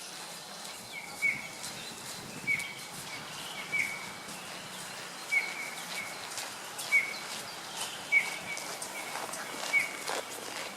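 A small bird calling: one short, high call repeated about every second and a half over steady outdoor background noise, with a few sharp clicks near the end.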